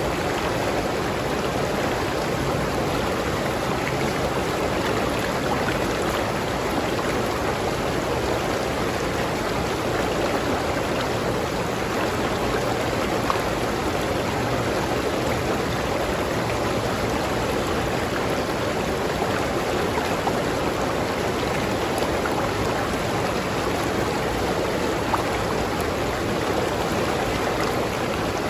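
A river stream flowing steadily, a constant rushing with occasional small splashes.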